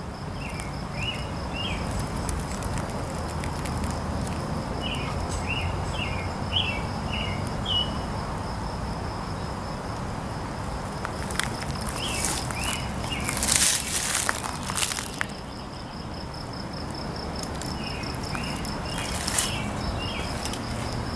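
A steady pulsing insect trill with a bird chirping in short runs of notes now and then, and footsteps crunching over debris around the middle and again near the end.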